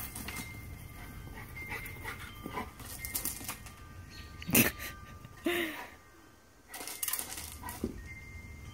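Two dogs at play, with a sharp dog bark about halfway through followed by a short yip.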